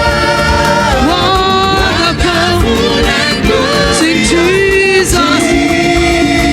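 Live gospel praise music: a band playing under sung, held melody notes that glide between pitches, with a steady beat.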